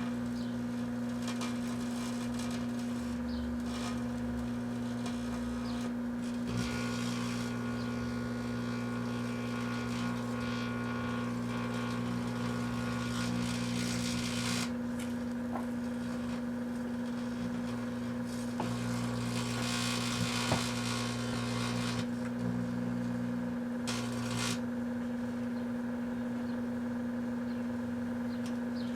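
A 1984 Kenmore microwave oven running with a steady electrical hum. Morning Glory sparklers are burning inside it, their hissing and crackling rising and falling in surges over the hum.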